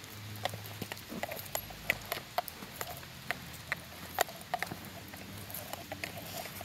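Irregular light clicks and taps, several a second: small dogs' claws and paws pattering on a paved path along with a walker's footsteps.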